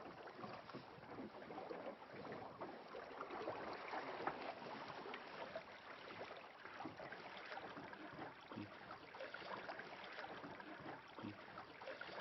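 Faint, steady water noise around a small fishing boat on a river: an even hiss with small crackles and no engine running.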